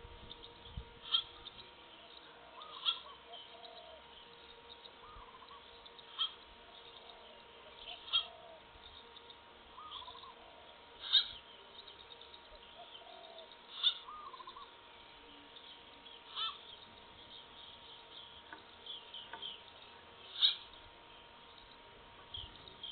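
Wild birds calling in woodland: a short, sharp call repeats about every two to three seconds, with softer warbling calls from other birds in between.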